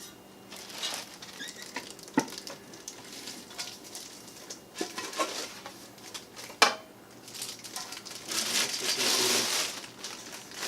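Parts of a pressure cooker and air fryer being handled: scattered light clicks and knocks, with a sharper knock about six and a half seconds in, then a stretch of rustling near the end.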